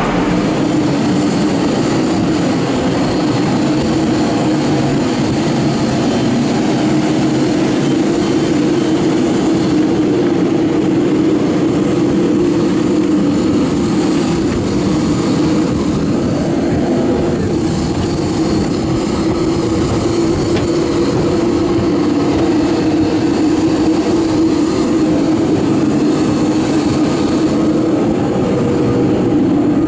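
Steady, loud jet-airliner turbine noise on the apron: a continuous drone with a thin high whine over it.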